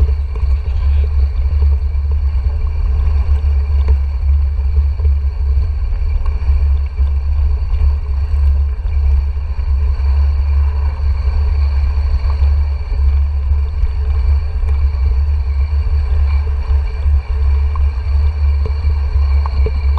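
Steady low rumble of wind and ride vibration on a GoPro Hero 4's microphone as a mountain bike rolls down a flagstone-paved path, with a few faint clicks from the bike.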